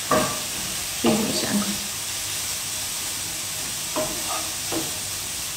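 Pancetta frying in a pan: a steady sizzle, with a few short clatters over it about a second in and again around four seconds in.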